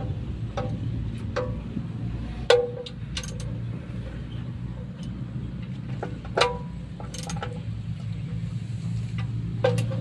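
Metal hand tool clinking and tapping against the fittings on top of a stationary engine, about a dozen sharp strikes at irregular intervals that ring briefly, over a steady low hum.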